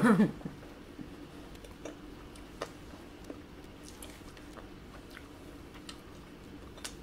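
Chewing and mouth sounds of people eating hotteok, Korean sweet pancakes, with a few scattered small clicks.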